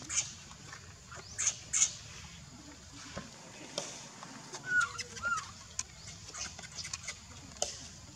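Baby macaque crying for its mother: a string of short, high-pitched squeals and chirps, one every second or so, two of them much louder than the rest.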